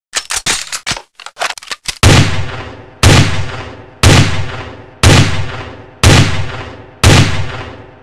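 Steyr AUG rifle sound effect: a quick run of sharp clicks and clacks for about two seconds, then six single shots fired one a second, each followed by a long echoing tail that dies away before the next.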